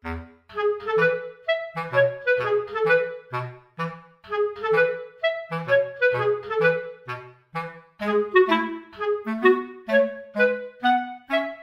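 Background music: a bouncy melody of short, quick notes over a bass line.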